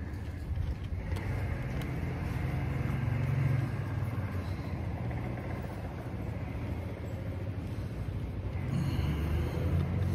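Low rumble of passing road traffic, swelling about three seconds in and again near the end.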